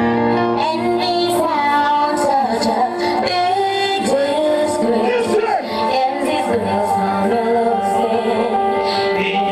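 Sound-system music: a record with a sung lead vocal over a steady beat, played loud.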